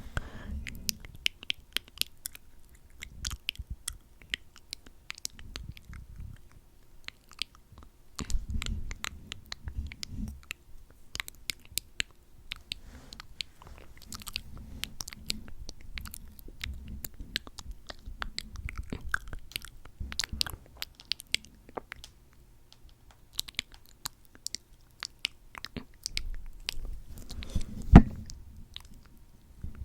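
Close-up wet mouth sounds: lips coated in lip oil smacking and parting with many irregular sticky clicks, one louder smack near the end.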